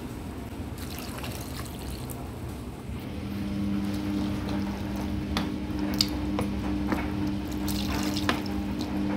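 A wooden spoon stirring cooked lentils (parippu) and vegetables in an aluminium pot: wet, mushy stirring with a few sharp taps of the spoon against the pot. A steady low hum comes in about three seconds in.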